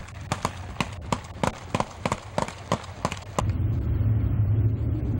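Guns fired into the air in a ragged volley: about a dozen sharp shots at uneven intervals, cutting off about three and a half seconds in. A steady low rumble follows.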